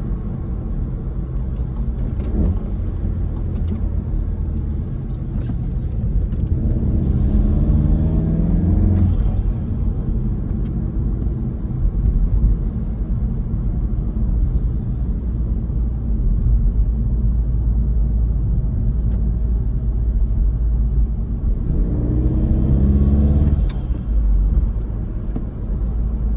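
Inside the cabin of a 2018 VW GTI Mk7.5 with its EA888 2.0-litre turbocharged four-cylinder, fitted with an aftermarket intake and a turbo muffler delete: a steady low rumble while driving, with the engine note rising under acceleration about seven seconds in and again about twenty-two seconds in, each pull cutting off suddenly as the driver shifts gear.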